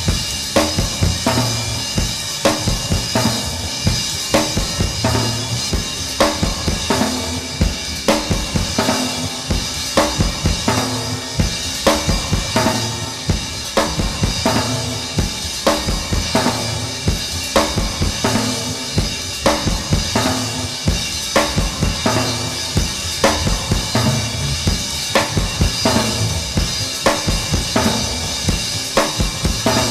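Isolated studio drum kit track playing a steady, repeating one-bar beat: bass drum and snare/tom strokes recurring at even spacing under a continuous cymbal wash. The drums are heavily compressed and damped.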